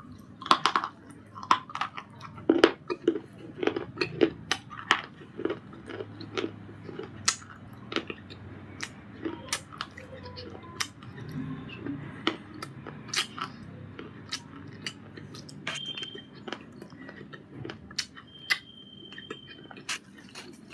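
Pieces of 'Punjab biscuit' baked clay with white chalk (khadi) paste being crunched: a run of sharp, crisp cracks, dense and loud in the first half and sparser later on.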